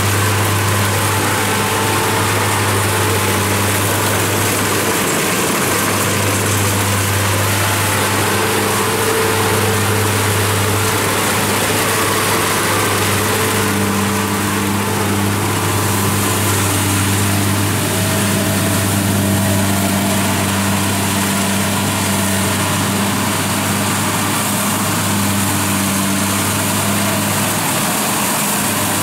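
Kubota DC-70 rice combine harvester running steadily as it cuts and threshes rice. Its diesel engine hums evenly under the steady noise of the cutting and threshing machinery.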